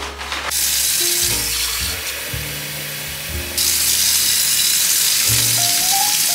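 Kitchen mixer tap running, its stream splashing into a stainless steel sink. The flow grows louder about halfway through.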